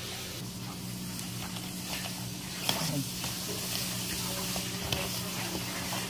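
Hands working flour and water into bread dough in a plastic bowl: a steady crackly rustle, with a couple of light knocks against the bowl about three and five seconds in.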